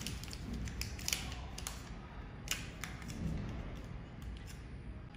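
Small white paper wrapper of a replacement protective lens crinkling as it is peeled open by hand, with a few sharp crackles, the clearest about a second in and about two and a half seconds in.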